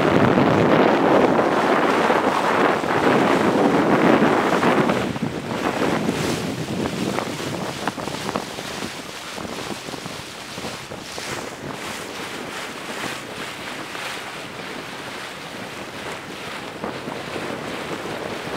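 Wind buffeting the microphone aboard a moving boat, with the rush of water beneath. It is heavy for about the first five seconds, then eases to a lighter, steady rush.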